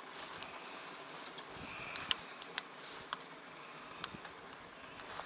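Scattered sharp clicks and taps from fishing tackle handled by hand while a small lure is rigged, about five in all, the loudest about two seconds in, over a faint outdoor background.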